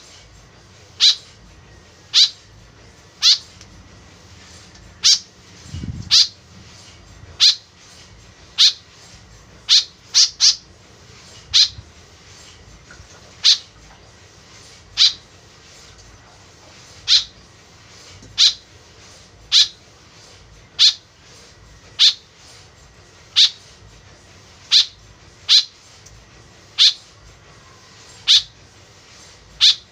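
White-breasted woodswallow (kekep babi) giving short, sharp, high calls, one every second or so, over and over, like a repeated lure recording. There is a brief low bump about six seconds in.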